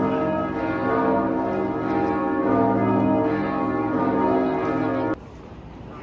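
Church bells ringing from a clock tower, several bells sounding together, cut off suddenly about five seconds in.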